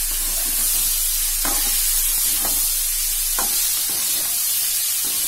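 Spiced chicken pieces with onion and tomato sizzling in a non-stick kadai over a medium flame while a spatula stirs them, scraping the pan about once a second. The chicken is being slow-fried in its spices (kosha).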